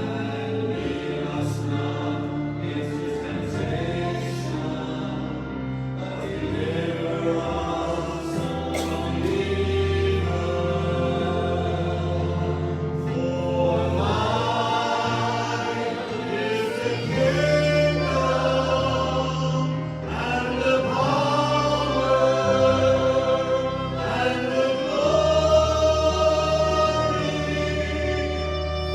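Worship singing by a group of voices, with instrumental accompaniment holding low bass notes that change every few seconds; the melody slowly rises and falls.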